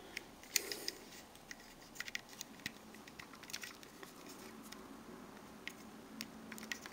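Faint plastic clicks and handling noise of a Transformers Combiner Wars Blades figure being turned in the hands and its parts clipped into place: scattered short, sharp ticks over low room hiss.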